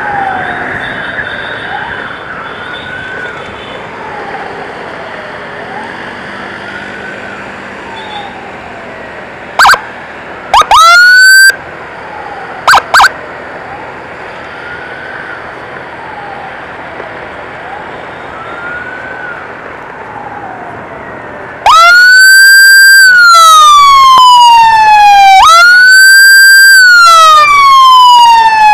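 Emergency siren wailing faintly over road noise, broken by a few short, loud siren blips near the middle. About three-quarters of the way through, a siren close by starts wailing loudly, each cycle rising quickly and then falling slowly over about three seconds.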